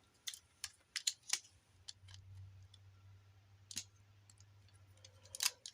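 Scattered small, sharp plastic clicks and taps as a 3D-printed sword is worked into the hand of a Transformers action figure.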